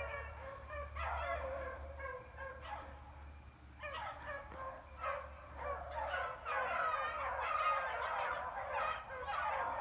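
A pack of about seven beagles baying on a rabbit's track, many hounds giving tongue at once in an overlapping chorus. The chorus swells louder about two-thirds of the way through.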